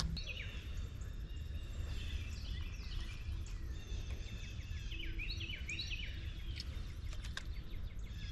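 Several songbirds singing and calling at once, a steady stream of short chirps and quick trills, over a low steady rumble.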